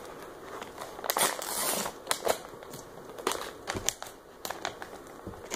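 Plastic bait bag of soft-plastic grubs crinkling as it is handled, in irregular crackles with a longer rustle about a second in.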